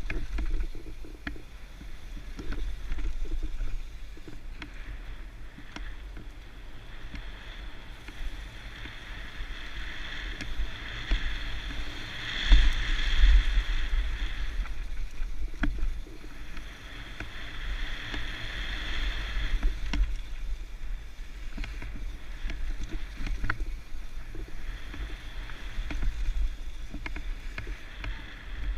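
Mountain bike descending a bike-park trail, heard from a camera on the rider or the bike. Wind rumbles on the microphone under a rushing noise from the ride, with frequent short clatters and knocks over the bumps. It is loudest about twelve to fourteen seconds in.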